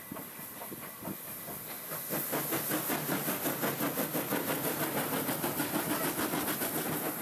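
SJ class E2 steam locomotive, built 1907, passing close by under steam: a quick, even train of exhaust chuffs with hissing steam over it, getting louder about two seconds in as the engine draws alongside.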